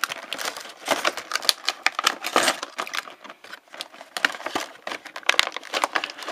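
Clear plastic blister packaging crackling and clicking in quick, irregular bursts as two toothed plastic Beyblade ripcords are pulled out of their tray by hand.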